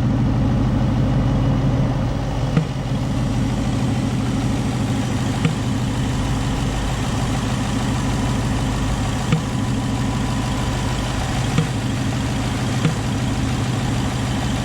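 Ford Mustang GT's 5.0-litre V8 idling steadily, with a sharp pop from the throttle body and intake area about five times, at uneven gaps of one to four seconds. The dealer traced this popping to a faulty throttle body, a known issue covered by a Ford bulletin.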